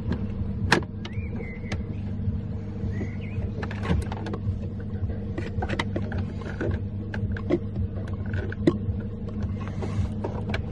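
Screwdriver clicking and scraping against the steering wheel as it is worked into the airbag release hole to push back the airbag's retaining spring: many scattered sharp clicks and small knocks over a steady low hum.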